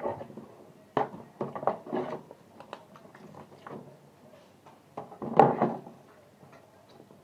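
Knocks, thumps and clatter from handling a raw chicken, a knife and dishes while cutting up the bird at a kitchen sink. There is a sharp knock about a second in and the loudest clatter a little after five seconds.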